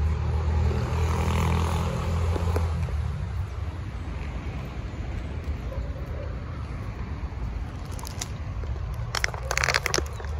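Low engine rumble of a motor vehicle, loudest in the first few seconds and then fading into steady outdoor background noise. A few sharp clicks and rustles come near the end.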